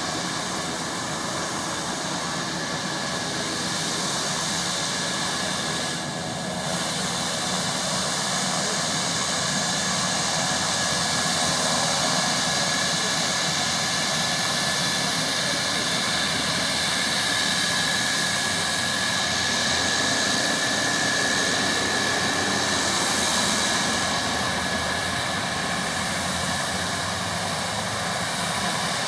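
Beechcraft King Air 250's Pratt & Whitney PT6A turboprop engines running, a steady turbine whine over propeller noise.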